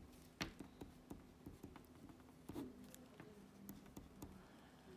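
Faint scratching and tapping of a pen writing on paper, in small irregular clicks, with a sharper tap about half a second in.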